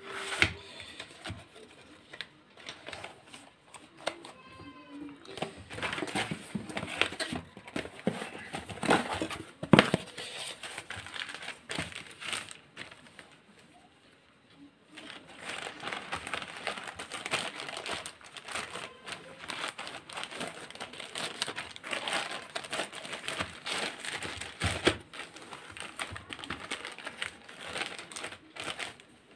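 Plastic courier mailer bag crinkling and rustling as a small cardboard box is handled and packed back into it, with scattered light taps. The handling goes quiet for a moment about halfway through.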